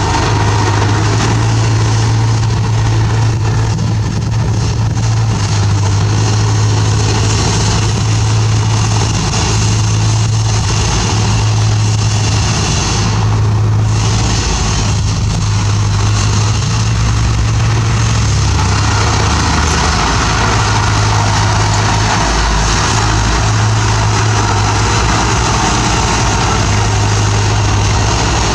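Bulldozer's diesel engine running steadily with a deep, even hum, its sound shifting and growing noisier about two-thirds of the way through.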